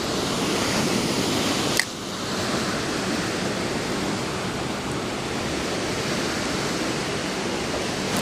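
River water rushing steadily over rocks, with a single sharp click about two seconds in.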